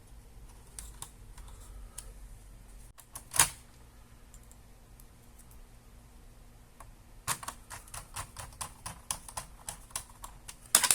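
Small clicks and taps of screws, a screwdriver and plastic laptop parts being handled. There is one sharper click about three and a half seconds in, and a quick run of clicks, several a second, over the last few seconds.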